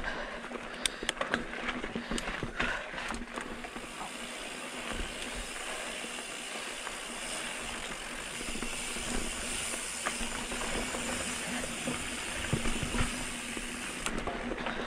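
Mountain bike rolling along a dirt trail: steady hiss of tyres and wind, with rattles and clicks from the bike in the first few seconds.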